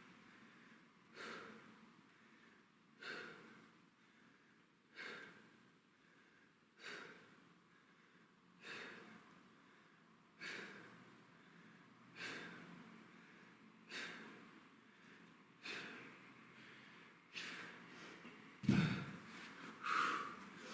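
A man breathing hard through exercise reps: one sharp, forceful exhalation about every two seconds, in steady rhythm with each repetition. Near the end comes a louder, deeper burst.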